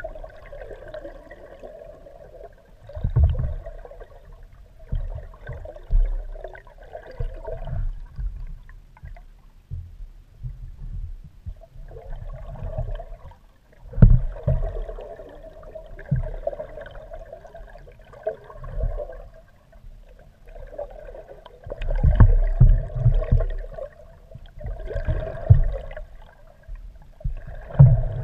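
Muffled water gurgling and rushing around a GoPro camera housing mounted under a moving kayak. It comes in surges every several seconds, with short lulls between and low knocks and thumps against the housing and mount.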